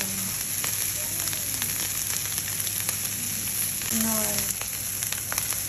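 Fried rice sizzling in a hot pan, a steady hiss with a few light clicks scattered through it.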